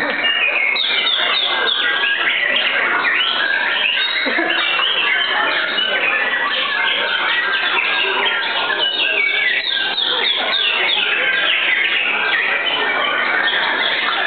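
White-rumped shamas (murai batu) singing: a loud, continuous run of rapid whistled and chattering phrases, several birds overlapping.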